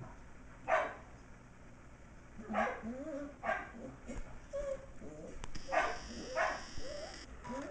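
Sheltie puppies barking through the wire of a pen: five short, sharp yaps spread across the stretch, with wavering whines between them.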